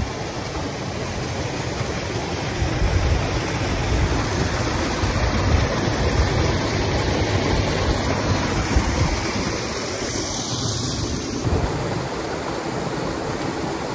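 Small waterfall splashing into a shallow rocky pool, a steady rush of falling and running water.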